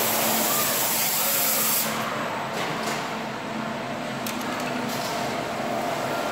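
Belt conveyors of an automatic coffee-bag unloading line running with a steady hum, under a loud hiss that falls away about two seconds in, while a 60 kg jute coffee bag rides along the belt; a few faint clicks follow.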